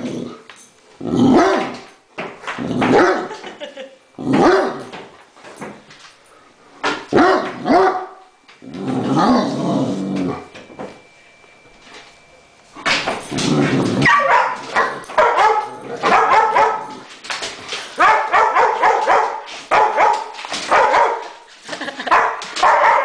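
Great Dane barking: single barks a second or two apart at first, then after a short quiet spell a near-continuous run of barks over the last ten seconds.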